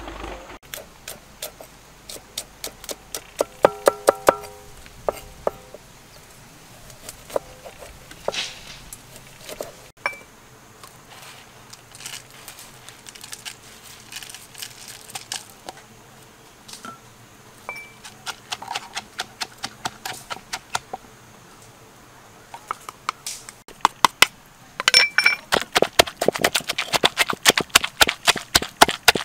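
A wooden pestle knocking in a clay mortar as peanuts, chilli and greens are crushed. The strikes are scattered at first, then come fast and steady at about three or four a second near the end.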